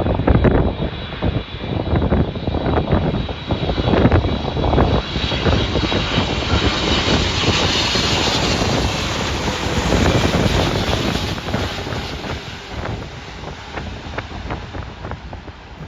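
Jet airliner's engines going past close by, the noise swelling to a peak around the middle and then fading, with wind buffeting the microphone.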